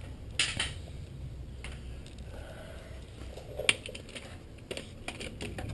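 Scattered light clicks and taps of hand tools and metal parts being handled against the engine's timing cover, a dozen or so irregular knocks over a low steady background.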